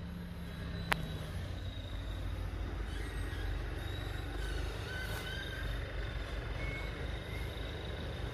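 Scania diesel engine of a log-hauling tractor running with a low, steady rumble as it crawls along, with one sharp click about a second in.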